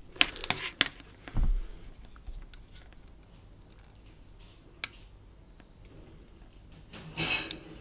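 Light clicks and taps of multimeter test probes being handled and set against a laptop motherboard's soldered coin-cell BIOS battery, with a dull knock about a second and a half in and one sharp click near the middle. A brief breathy sound comes near the end.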